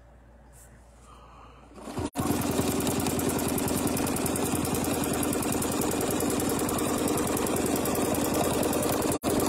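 Domestic sewing machine stitching at high speed, a steady rapid run of needle strokes that starts about two seconds in after a quiet pause and breaks off for an instant near the end.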